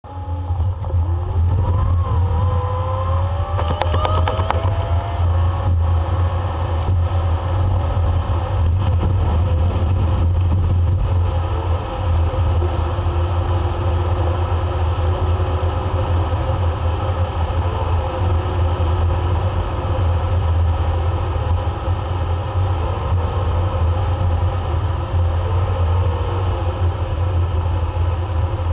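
Plow truck driving, heard from inside the cab: a steady, loud low rumble of engine and road, with engine tones wavering up and down as the truck changes speed.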